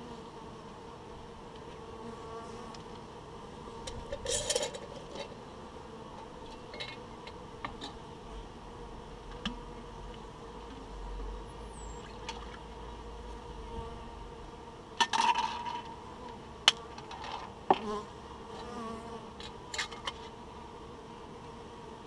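Honeybees buzzing around their hive in a steady hum. Over it come several short clatters and sharp knocks of gear being handled at the hive, the loudest a few knocks about fifteen to eighteen seconds in.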